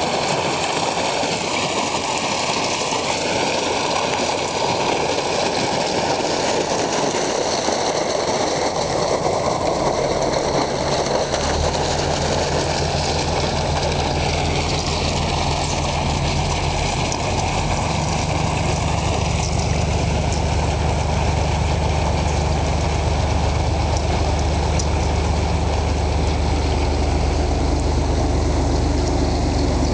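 Canal barge's diesel engine running steadily close by, over churning water; a low engine hum comes in about ten seconds in and grows stronger.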